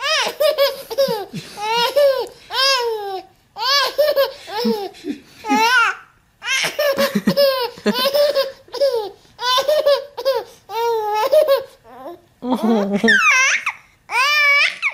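A baby laughing over and over in short, high-pitched bursts of giggles, breaking into a few higher, rising squeals of laughter near the end.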